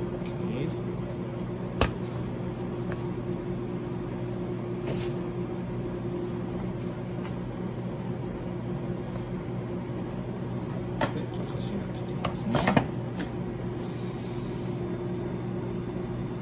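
A steady hum of kitchen machinery, with a few sharp taps and knocks of a knife and hands on a plastic cutting board as fish fillets are handled: one about two seconds in, then a small cluster about two-thirds of the way through.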